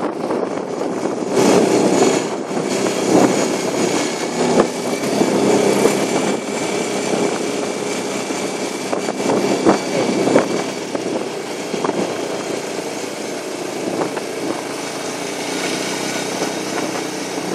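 Quad bike (ATV) engine running steadily at low city speed, with road and wind noise and a few brief knocks.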